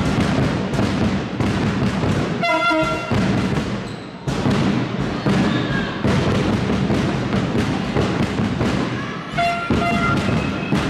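Sports-hall crowd din full of rapid percussive beats, with a horn sounding short blasts about two and a half seconds in and again near the end.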